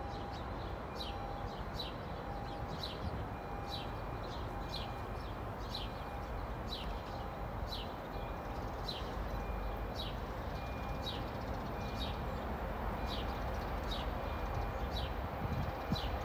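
A bird calling over and over with short, high, downward-sliding chirps about twice a second. Underneath is the low rumble of a distant train approaching, which grows slightly near the end.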